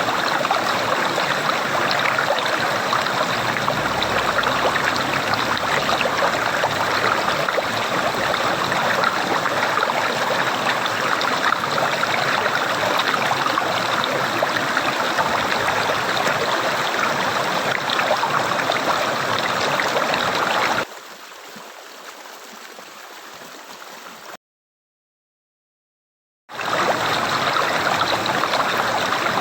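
Running water gurgling steadily. About twenty-one seconds in it drops suddenly to a much quieter wash, cuts to complete silence for about two seconds, then the same gurgling water starts again at full level.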